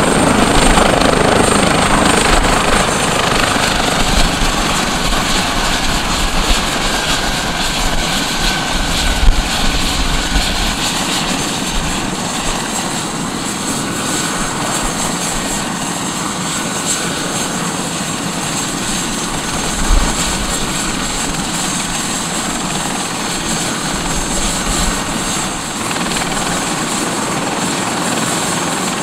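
Airbus H145 helicopter running on the ground at idle, its twin turbines whining and main rotor turning. The sound eases down over the first ten seconds, then holds steady, with two brief low bumps about nine and twenty seconds in.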